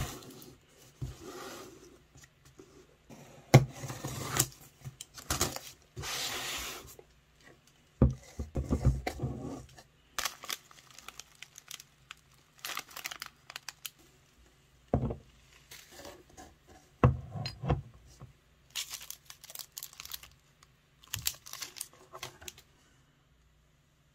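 Gift packaging being unwrapped by hand: a cardboard box torn open, then cellophane bags crinkled and items set down, in irregular bursts of tearing and rustling with a few sharp knocks. It stops shortly before the end.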